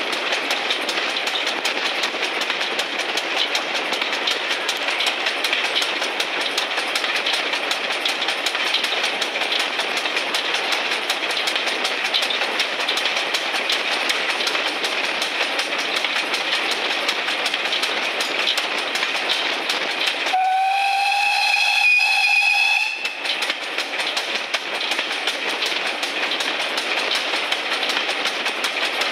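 Steam-hauled train running at speed behind GWR 1366-class 0-6-0 pannier tank 1369: a steady running noise with a fast, even clicking from the wheels and track. About twenty seconds in, the locomotive's whistle sounds once, one steady note lasting about two and a half seconds.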